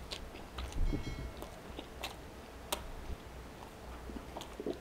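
Close-up eating sounds of a man biting into and chewing a grilled cheese tuna melt: soft, wet chewing with small mouth clicks, and one louder bite about a second in.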